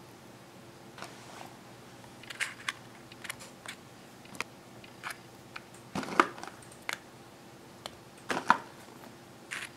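Soft, scattered taps and light paper rustles of fingers setting cream cheese cubes and blueberries into muffin batter in paper baking cups, with a few sharper taps among them, over a faint steady hum.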